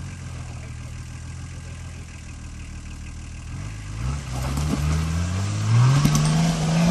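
Nissan Patrol GR 4x4's engine running steadily at low revs, then revving up in rising surges from about three and a half seconds in as the truck climbs a rock step, with a couple of sharp knocks.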